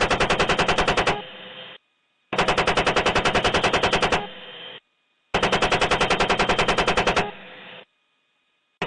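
Automatic gunfire in three long bursts of about two seconds each, at roughly ten rounds a second. Each burst ends in a brief fainter, duller tail, then cuts off suddenly.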